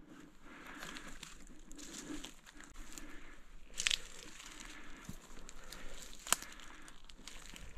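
Close rustling and crinkling with scattered small crackles, and two sharp clicks about four and six seconds in.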